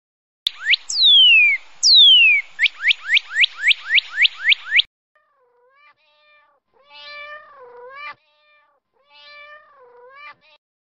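Animal calls: first a loud, fast run of sharp rising chirps with two longer falling sweeps among them. After a short pause come several softer, wavering calls.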